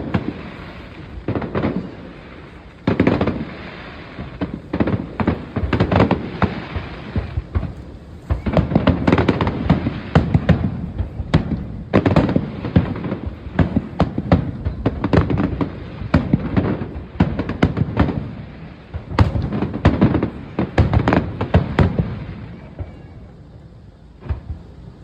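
Aerial fireworks display: a continuous barrage of shell bursts, sharp bangs and crackling in rapid succession, easing briefly about eight seconds in and again near the end.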